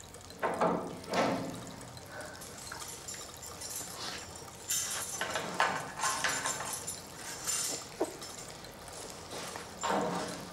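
Water splashing in a washbasin as a person washes her face with her hands, in a series of separate splashes with drips and trickles between them.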